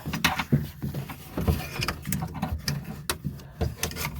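Irregular clicks, knocks and rattles of plastic and metal parts being handled inside a car door as the door lock actuator and its cable are worked loose.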